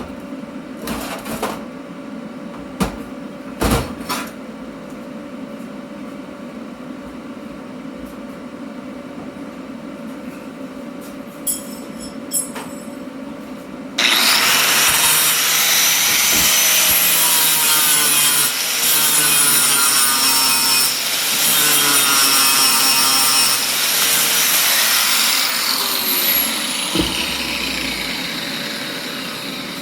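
Angle grinder working steel. A few knocks sound over a steady hum, then about halfway through the grinder starts suddenly and runs loud and hissing with a whine for about ten seconds. It is then switched off and winds down with a falling whine.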